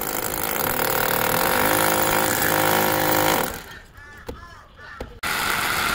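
Corded electric drill boring into a brick wall, running steadily, stopping about three and a half seconds in, then starting again near the end.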